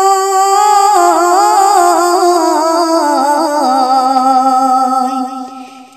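A child's voice singing a Bengali Islamic gojol: it holds a long note, then slides down through a wavering, ornamented run with no words, and fades out near the end.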